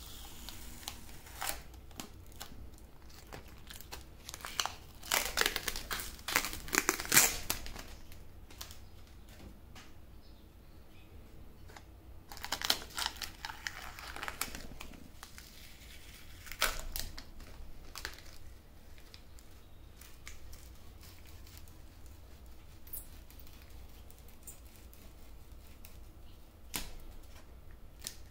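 Red Tuck Tape being peeled off the end of a steel frame tube and crumpled in hand, crinkling and tearing in several bouts, loudest from about five to seven seconds in.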